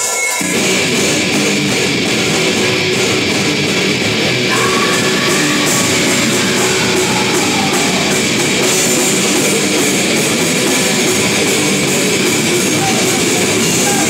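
Live heavy rock band playing loud and steady: electric guitars over a drum kit.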